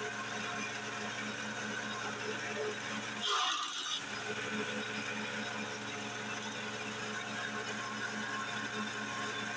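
Grass chopper machine running with a steady mechanical hum. About three seconds in, the hum drops out for under a second while a short, louder rushing noise takes over, then the steady running resumes.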